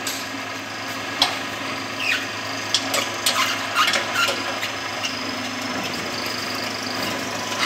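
Stainless-steel screw-type oil expeller running steadily with a low hum, overlaid by irregular short clicks and squeaks while it presses oil.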